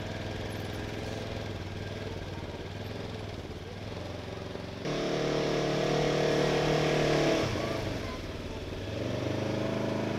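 UTV engine running as it drives up through soft mud. It revs up about five seconds in and holds for two or three seconds, drops back, then picks up again near the end.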